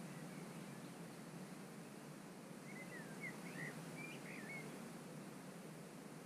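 A bird singing a short phrase of swooping whistled notes about halfway through, faint over a steady background hiss of the outdoors.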